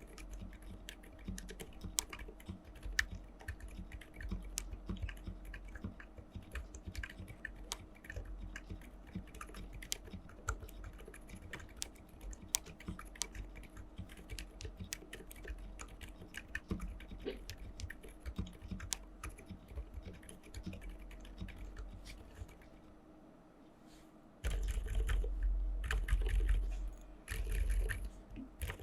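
Typing on a GK68 mechanical keyboard fitted with silent Alpaca linear switches: a rapid, steady run of soft, damped keystrokes. It eases off briefly and turns into louder bursts of keypresses for the last few seconds.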